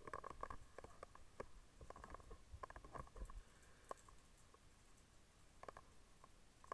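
Faint scattered clicks and light knocks, thickest in the first half and again just before the end.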